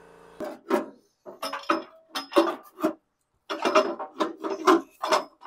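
Hand tools and sheet-metal parts clinking and knocking in quick, irregular succession, a few strikes ringing briefly, as the fan shroud is taken off an air-cooled VW engine.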